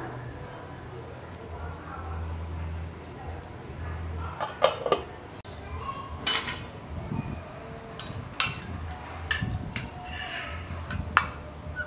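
Black chicken soup boiling in an aluminium pot on a portable gas stove, with several sharp clinks and knocks of a utensil against the pot from about halfway on as it is stirred.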